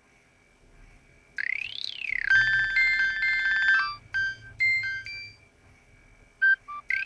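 Nokia 6820 polyphonic ringtone playing: after a faint hum, a synth tone sweeps up and back down, then a quick run of bright chiming notes and a few short beeps, and the sweep starts over near the end as the tune loops.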